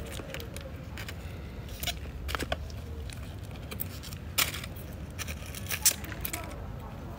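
Dry dead succulent leaves being plucked off and crumbled by hand: irregular crisp crackles and small snaps, with two louder snaps in the second half.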